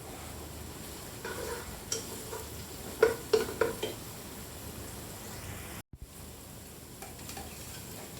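Food sizzling in hot oil in a frying pan as it is stir-fried, with a steady hiss and a few sharp clacks of the utensil against the pan about three seconds in. The sound cuts out for a moment about six seconds in.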